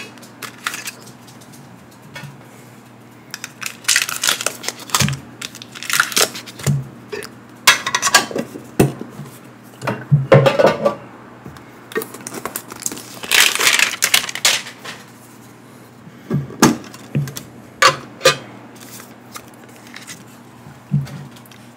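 Pokémon TCG mini tins being opened and emptied by hand: clinks and clicks of the small metal tins and lids, with rustling of the plastic inserts and foil booster packs, in irregular bursts with short pauses between.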